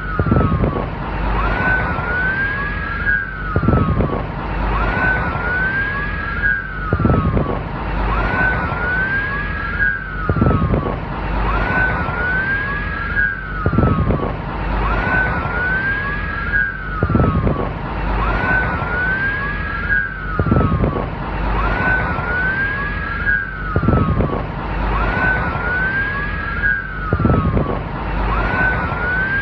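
Police siren wailing: two overlapping wails, each rising and then falling, repeat as an identical loop about every three and a half seconds, with a short low thump in each cycle.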